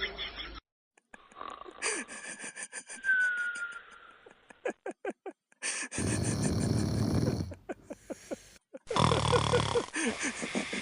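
A sleeping dog snoring, heard in several short clips that start and stop abruptly.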